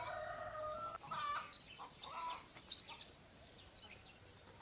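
Domestic chickens calling: a long held call at the start, then shorter clucking calls about one and two seconds in. Small birds chirp throughout.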